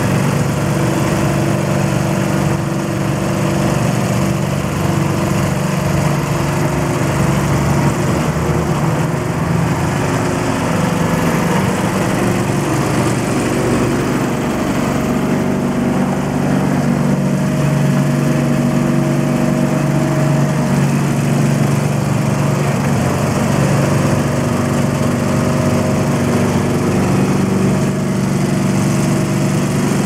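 Petrol engine of a Kärcher street vacuum running at a steady speed, driving the suction, with a continuous even drone.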